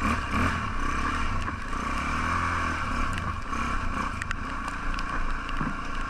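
Single-cylinder four-stroke trail motorcycle riding a rough dirt lane, its engine note rising and falling with the throttle. A few sharp clicks come through, mostly in the second half.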